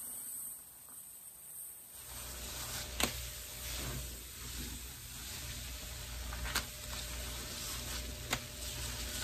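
Pine-cleaner suds in a bucket sizzling, a fine crackling fizz of popping foam that sets in about two seconds in, with a few sharp clicks.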